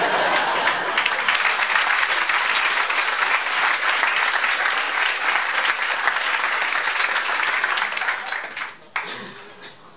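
Audience applauding after a punchline: a dense, steady clatter of many hands clapping that starts at once and fades out about nine seconds in.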